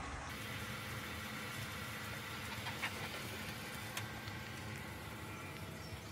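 Outdoor garden ambience: a steady background hiss with a faint low hum and a couple of faint clicks.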